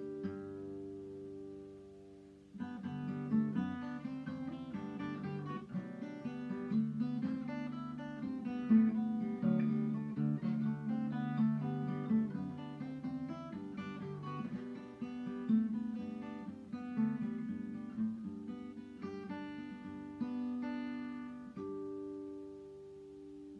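Acoustic guitar in open G tuning played fingerstyle. A chord rings and fades, then a flowing picked passage of melody over a bass line starts about two and a half seconds in, settling on a held, ringing chord near the end.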